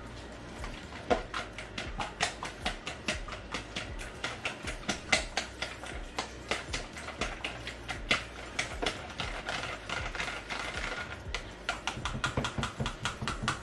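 Eggs being beaten in a bowl with a fork: quick, uneven clicks of the fork striking the bowl, about three or four a second.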